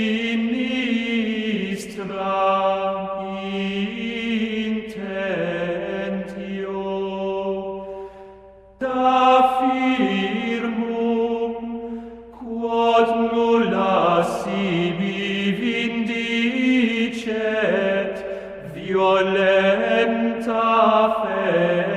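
Gregorian-style chant of a Latin prayer, sung on long held notes that glide from pitch to pitch, with a short break in the singing about nine seconds in.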